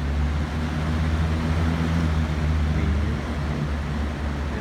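Box fan running on high speed, a steady rush of air over a low, even motor hum.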